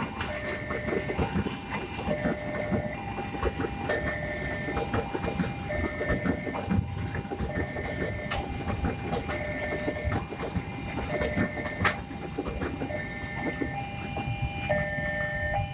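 Container freight train's flat wagons rolling past, wheels clacking and knocking over the rail joints with a steady rumble. Over it the level-crossing warning alarm sounds, switching back and forth between two tones, each held for under a second.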